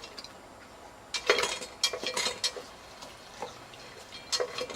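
A dog drinking from a push-valve dog water fountain: quick wet laps and splashes, about three or four a second, in a run of a second and a half followed by a few more near the end.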